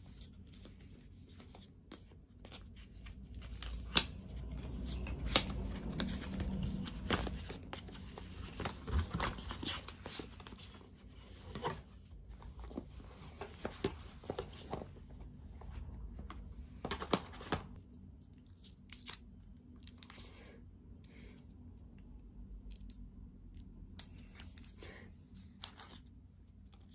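Hands opening an Apple Watch's cardboard packaging: paper tearing, cardboard sleeves sliding and rustling, and scattered sharp taps and clicks, busiest in the first half or so and sparser later.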